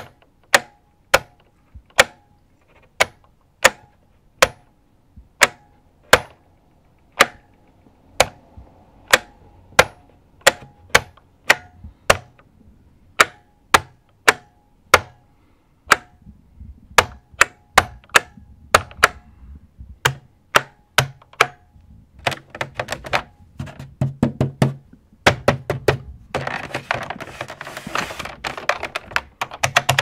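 Unicomp buckling-spring mechanical keyboard: keys pressed one at a time, each a sharp click, many followed by a faint ringing from the springs bouncing back up. From about twenty seconds in the presses come faster, becoming rapid continuous typing near the end.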